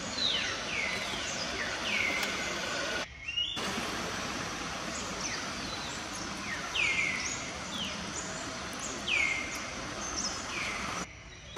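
Birds calling with short, repeated notes that slide quickly downward, several overlapping, over a steady outdoor hiss. The whole background cuts out briefly about three seconds in and again near the end.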